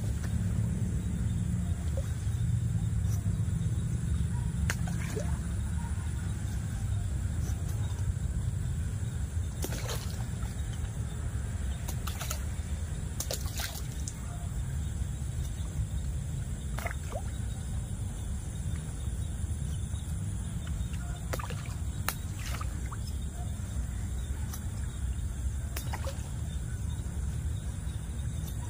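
Occasional short splashes and sloshes of pond water as feed is scattered and catfish take it at the surface, over a steady low rumble.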